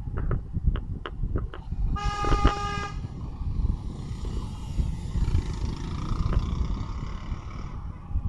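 Road rumble of a moving vehicle in traffic, with scattered knocks and rattles. A vehicle horn sounds once for about a second, about two seconds in.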